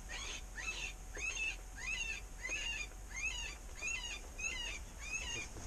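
Electronic predator call playing a looped animal distress sound: high, arching squeals repeated evenly, about ten in a row, to lure a coyote.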